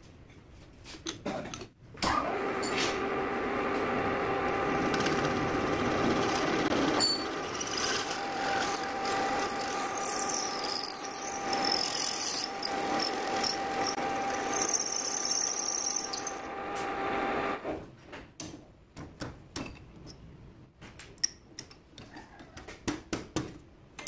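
Metal lathe drilling: a twist drill turning in the lathe chuck bores into a metal part held in a small three-jaw chuck, a steady running sound with a whine. It starts about two seconds in and stops about seventeen seconds in, followed by light clinks and rattles.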